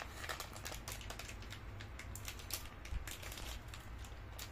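Light, irregular clicks and soft rustles of small plastic packaging and items being handled on a table.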